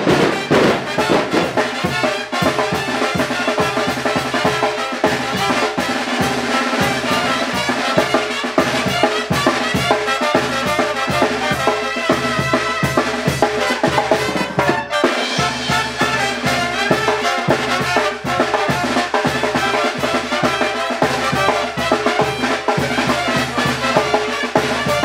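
Mexican village brass band (banda de viento) playing: trumpets and other brass over a sousaphone bass line, with a steady beat on bass drum, timbales and congas.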